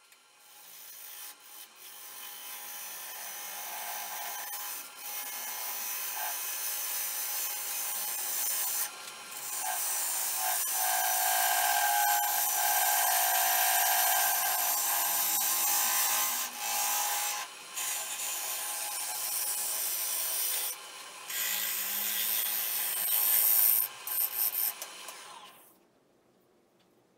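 Turning gouge cutting a spinning red carob wood vase blank on a lathe: a steady hissing scrape as shavings peel off, with a few short breaks where the tool lifts. It cuts off suddenly near the end.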